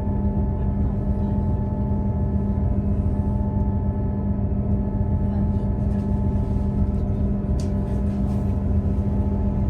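Cabin sound of a Class 158 diesel multiple unit under way: a steady engine drone with a constant hum, over the low rumble of the wheels on the track.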